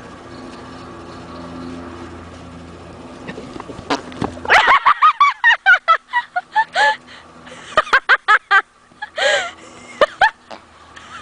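An animal making rapid runs of short, squeaky, pitched noises, starting about four seconds in over a steady low hum and coming back in quicker groups near the end. To one onlooker the noises sound like farting.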